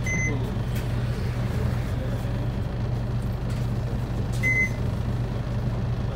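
Isuzu Erga city bus's diesel engine idling steadily as the bus stands still, heard from inside the cabin. Two short high electronic beeps sound, one at the start and one about four and a half seconds later.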